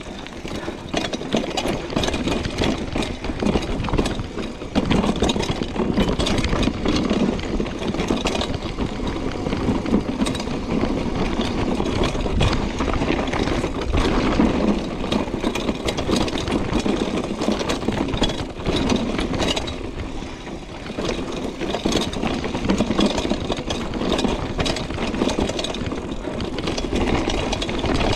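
Mountain bike rattling down a rocky downhill trail: a constant clatter of sharp knocks as the bike hits stones, over a steady rush of tyre noise, rising and falling in loudness with the terrain.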